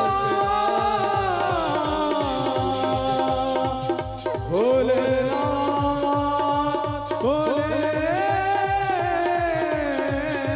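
Hindu devotional bhajan music with no words: a gliding melody line over a steady, fast drum beat.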